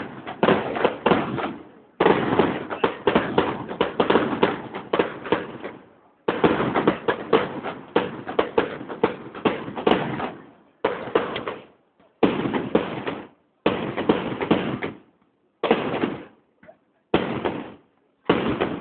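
Fireworks display: rapid volleys of bangs and crackling, with long runs of dense firing in the first half, then shorter salvos of about a second each separated by brief gaps.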